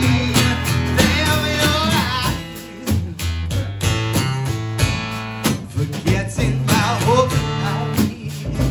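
Live music: a strummed acoustic guitar with a small drum kit (snare, bass drum and cymbal) keeping a steady beat, and a man's voice singing in stretches.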